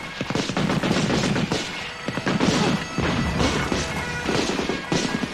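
Battle sound effects of heavy gunfire: a dense, continuous run of rifle and machine-gun shots mixed with blasts.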